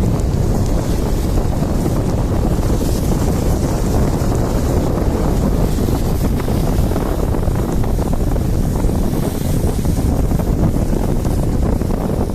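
Steady wind noise buffeting the microphone, mixed with the rumble of a moving vehicle.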